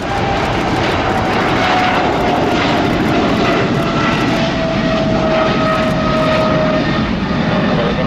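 Twin-engine jet airliner, a Boeing 777-300ER with GE90 turbofans, at takeoff thrust as it climbs out. It makes a loud, steady roar with a whine that slowly falls in pitch as the aircraft moves away.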